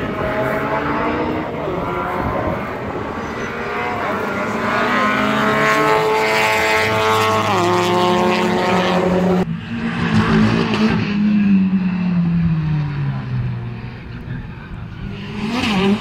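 Rally car engines at full throttle. One climbs steadily in pitch with a quick gear change, then cuts off suddenly about halfway through. After that a lower engine note falls away as a car backs off and passes, and an engine rises again near the end.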